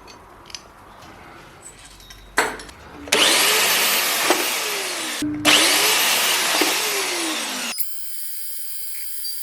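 A handheld power tool run in two bursts of about two seconds each, after a few light handling clicks and knocks. Each burst stops abruptly, and a faint steady high tone follows near the end.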